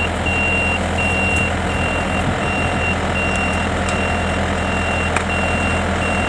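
Yanmar tank-type rice combine harvester engine running steadily, with a high electronic warning beep repeating about one and a half times a second.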